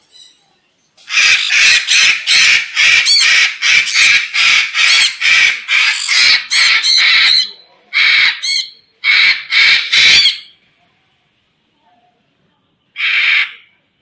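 White cockatoo screeching: a rapid run of loud, harsh screeches, about three a second for some six seconds, then a few more in pairs, and one last screech near the end.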